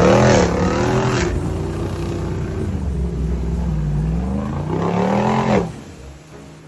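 An off-road 4x4's engine revving up and down as it works through mud. The sound drops away sharply about five and a half seconds in.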